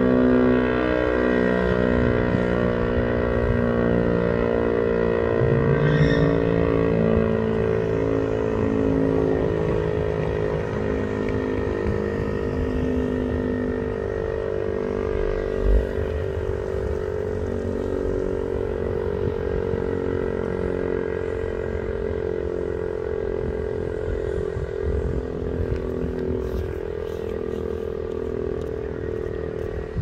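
Federal Signal STL-10 tornado siren winding down after its test, its tone sliding slowly lower and fading. A brief thump about halfway through.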